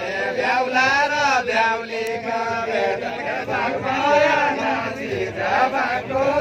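A group of voices singing a Bajureli deuda, the far-western Nepali folk song, in a chant-like melody of long phrases that rise and fall.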